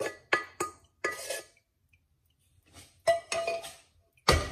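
Kitchenware clinking and knocking while berries are worked out of a pot into a cheesecloth-lined colander. There are several quick knocks with a short ring in the first second and two more about three seconds in, then one heavier thud near the end.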